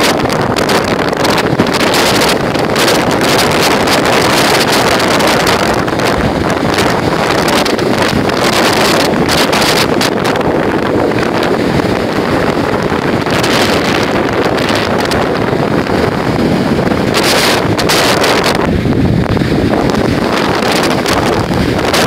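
Loud, steady wind noise on the microphone over waves breaking on a sandy beach in a storm.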